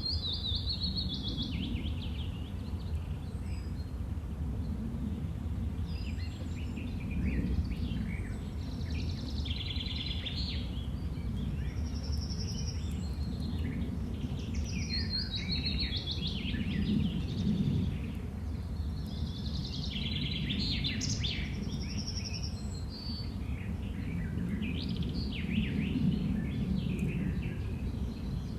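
Outdoor ambience of several songbirds chirping and singing over a steady low rush of wind, which swells and eases every few seconds.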